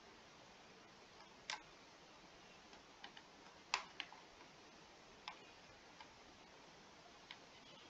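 Near silence broken by about eight faint, scattered clicks, the loudest a little under four seconds in: a pen stylus tapping and touching down on a writing tablet while writing on a digital whiteboard.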